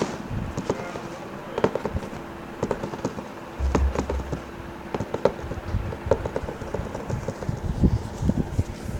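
Irregular light clicks and knocks, with a short low rumble about three and a half seconds in, over a faint steady hum.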